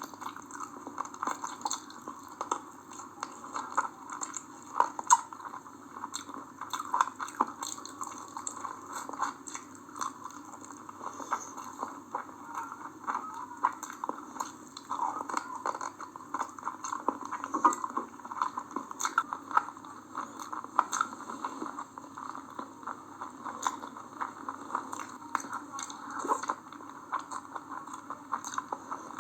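A person eating chicken biryani and curry close to the microphone: continuous wet chewing, biting and lip-smacking, with many irregular small clicks.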